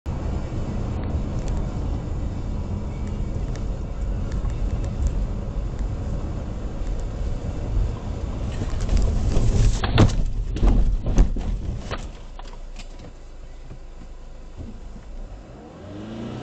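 Running noise from inside a moving car, then a road crash. About eight seconds in the noise swells, and a run of sharp bangs and crunches follows over the next few seconds as a sedan ends up overturned on its side. The running noise then drops off.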